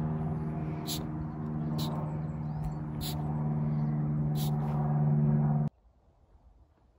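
A steady, low mechanical hum, like an engine running, with a few short, sharp high clicks over it. It cuts off suddenly about three-quarters of the way through, leaving near silence.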